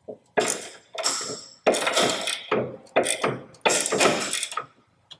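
Two 9/16 wrenches tightening a 3/8 stainless steel bolt and nut. Metal clinks and clicks come in a run of strokes, each sharp at the start and trailing off, about one every half second to a second.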